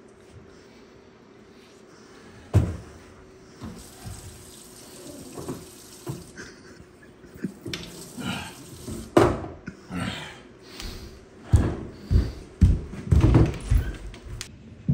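Tap running into a stainless-steel sink as a water bottle is filled, with a run of knocks and clunks from things being handled and set down. A sharp knock comes about two and a half seconds in, and the loudest clunks come in a cluster near the end.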